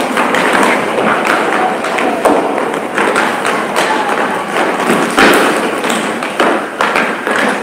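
Many feet running, stamping and scuffing on a wooden floor, with irregular thuds of bodies grappling and falling. The knocks come in quick uneven succession over a constant shuffling noise.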